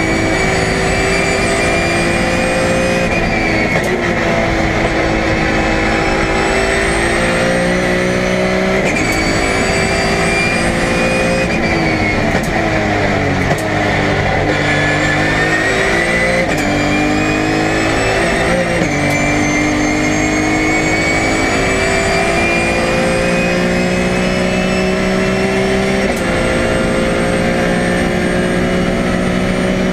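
BMW E46 M3 race car engine heard from inside the cockpit, climbing in pitch at full throttle and dropping back at each upshift. About twelve seconds in it comes off the throttle and the pitch falls in quick steps through downshifts under braking for a slow corner. It then accelerates hard again, climbing and upshifting several times.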